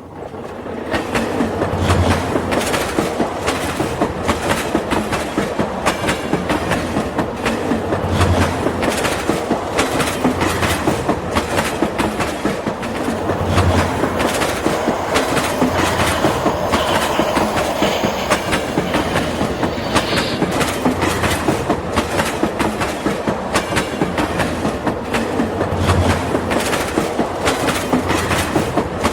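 Toy train running along its track: a steady, rapid clatter of clicks, with a few low thumps along the way.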